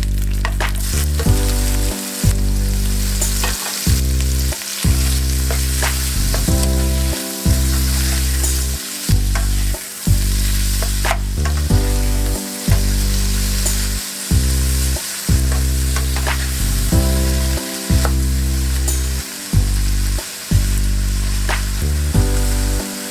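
Shrimp, rice and vegetables sizzling in a frying pan, stirred with a utensil that clicks against the pan now and then. Loud background music runs underneath, a low line of held notes with short breaks about every second.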